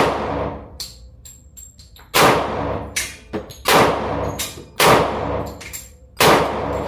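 Glock 36 .45 ACP pistol firing slow, deliberate shots, five in all about one to one and a half seconds apart, each followed by a long ringing tail. Faint light clicks come between the first two shots. This is a test of a fresh trigger job with a shorter reset.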